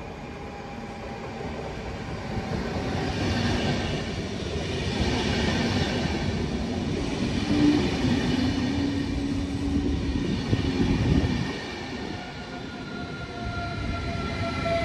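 DSB passenger train of Twindexx double-deck coaches with a Siemens Vectron electric locomotive arriving at the station: the coaches run past close by, getting louder as they come in. From about three-quarters of the way through, an electric whine falls slowly in pitch as the train slows to a stop.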